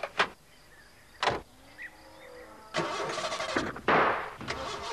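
A couple of sharp clunks, then from about three seconds in the post van's engine cranks over with a rhythmic churning and a loud splutter near the end, failing to start.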